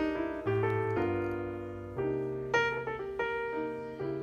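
Background piano music: a slow, gentle run of single struck notes and chords, each left to ring and fade.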